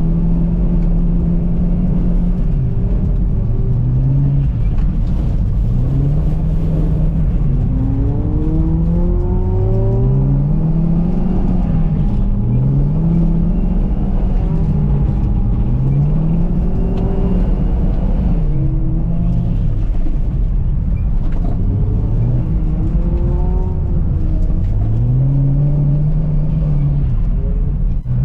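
Car engine revving up and down over and over while drifting on ice, its pitch rising and falling roughly every two seconds as the throttle is worked.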